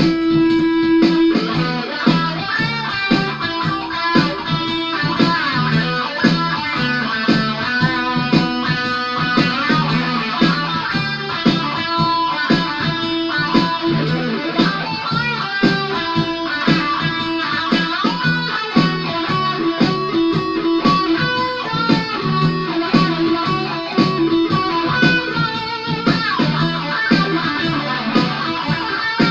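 Ibanez AS73 semi-hollow electric guitar played plugged in, a continuous run of picked notes and chords in the key of E.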